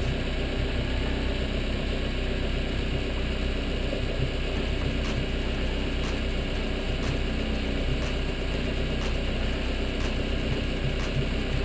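Motorboat engine running steadily, a constant even drone.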